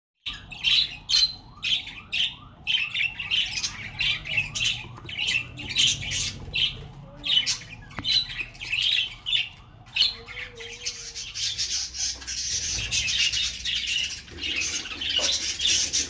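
Budgerigars calling: a run of short, harsh squawks, two or three a second, which thickens into denser, continuous chatter about ten seconds in.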